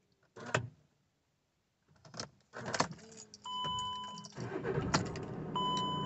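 Ignition key clicks and jangling keys, then dashboard warning chimes. About four and a half seconds in, the hot VW Crafter 2.0 TDI diesel engine cranks and catches, settling into a steady idle with another chime over it. This is a clean hot restart: a new crankshaft gear pulley has cured the camshaft/crankshaft correlation fault that made it stall.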